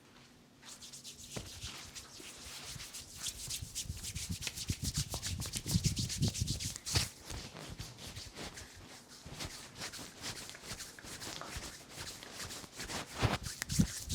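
Hands rubbing briskly over the scalp and through the hair in a head massage: a fast run of rubbing strokes that starts a moment in and carries on throughout, with soft thumps underneath.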